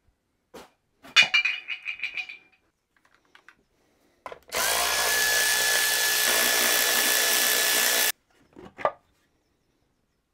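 Angle grinder running for about three and a half seconds at a steady high whine, cutting off abruptly. Before it, a short clatter of ringing metal clanks.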